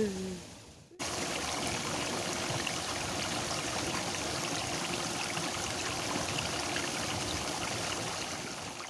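Water in a small rice-field irrigation ditch flowing steadily, starting about a second in after a brief gap.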